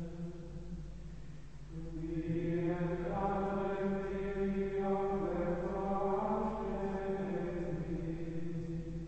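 Men's voices singing Carthusian plainchant in unison, in Latin, on long held notes. A slight lull comes before a new phrase begins about two seconds in.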